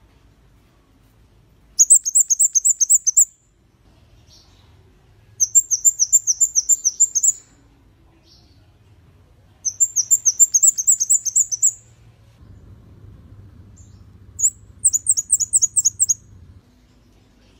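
Scarlet-backed flowerpecker singing: four bursts of rapid, very high-pitched, down-slurred ticking notes, several to the second, each burst lasting about a second and a half, with pauses of a few seconds between them.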